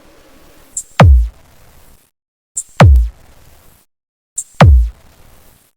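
Electronic sound-check remix music built on three deep bass drops about two seconds apart. Each drop is a short hiss followed by a kick that falls steeply in pitch into a long low boom, with brief near-silent pauses between them.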